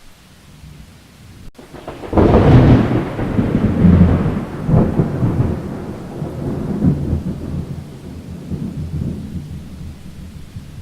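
Thunderclap breaking suddenly about two seconds in, then rumbling on in a few swells and slowly fading, over the steady hiss of a rainstorm.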